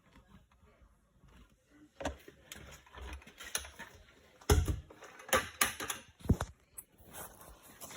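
Irregular clicks, taps and knocks from a funnel being worked into a tractor's PTO vent hole and handled, with the loudest cluster of knocks about halfway through.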